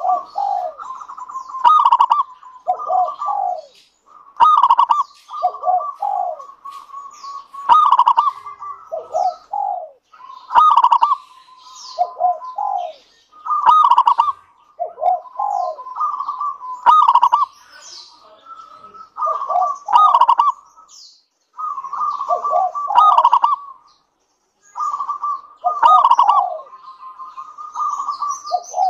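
Local Indonesian zebra dove (perkutut lokal) singing its coo phrase over and over, about one phrase every three seconds. Each phrase is a run of quick coos with a held note and falling notes.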